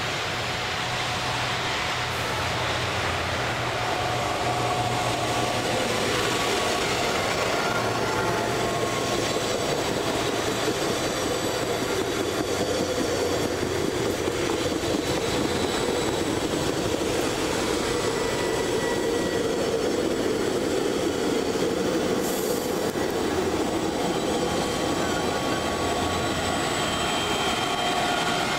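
Frecciabianca passenger train running through the station on the rails: a steady rolling rumble of the coaches' wheels, with faint thin wheel squeals, growing louder about four seconds in. The train's E.414 electric locomotive comes past near the end.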